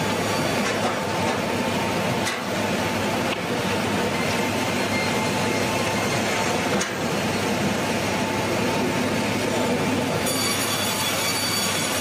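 Sawmill saw line running as logs are fed through: a steady, dense mechanical noise with a faint ringing tone. A set of high steady tones joins about ten seconds in.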